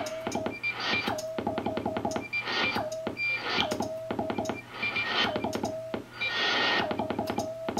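Morse code being sent on a hand key: quick runs of mechanical key clicks, each followed by a mid-pitched CW tone in short and long elements from the 6AQ5 transmitter's signal heard in the receiver. Receiver band hiss swells and fades behind it.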